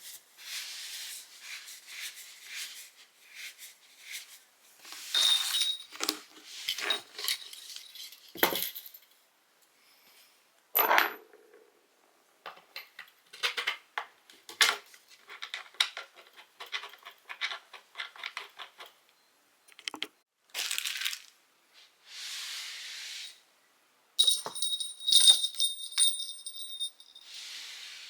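Scattered clinks, taps and scrapes of parts and small metal hardware being handled while cat stairs are put together by hand, with a couple of brief high metallic rings.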